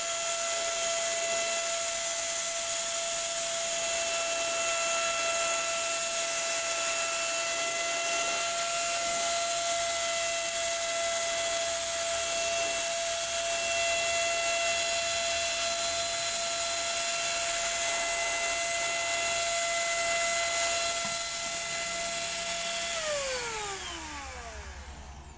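Handheld electric paint spray gun running with a steady high whine and an airy hiss. About 23 seconds in it is switched off, and the whine falls in pitch as the motor spins down.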